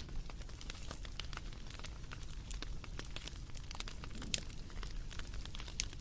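Wood fire crackling, with irregular sharp pops and snaps over a low steady rumble; one louder pop a little past four seconds in.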